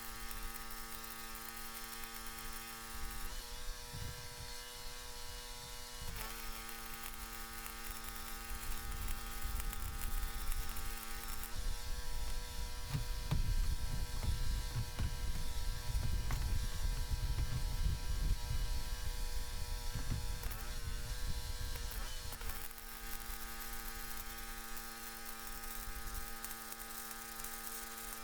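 Stick-welding arc from an HYW E7018 electrode crackling on rusty steel, starting about 3 s in, strongest past the middle and ending about three quarters of the way through. Under it the welding machine hums steadily, and the hum changes each time the arc strikes or breaks.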